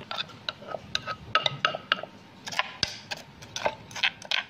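Wooden pestle pounding chillies and garlic in a clay mortar: quick, irregular sharp knocks, about four or five a second, each with a short ring.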